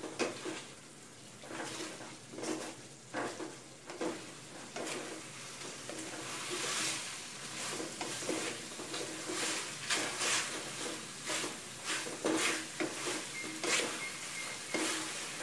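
Wooden spatula scraping and stirring chicken pieces and chicken feet in green curry paste around a metal pot, in irregular strokes over the sizzle of frying; the paste is being stir-fried until fragrant. The sizzle grows louder after about six seconds.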